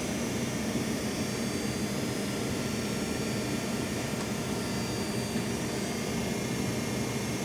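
A machine running with a steady, unchanging drone and a low hum.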